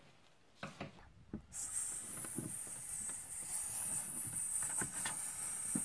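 A child making a long, steady hissing 'ssss' sound for a doll peeing on a toy toilet. It follows a few light knocks as the doll is handled and sets in about a second and a half in.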